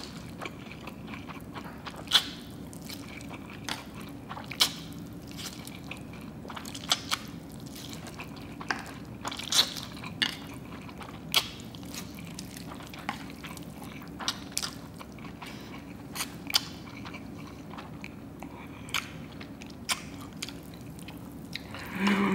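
A person eating a plate of spicy stir-fried instant noodles fast: irregular slurps and wet chewing and mouth sounds, about one every second, over a faint steady hum.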